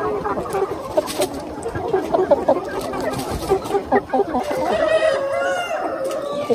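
A large flock of chickens clucking and chattering constantly while feeding, with a rooster crowing once, a long drawn-out call, in the second half.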